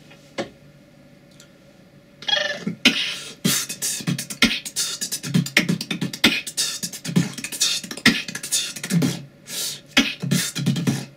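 Human beatboxing: after about two seconds of quiet, a fast, rhythmic run of low vocal kick-drum thumps, sharp clicks and hisses, cutting off abruptly near the end.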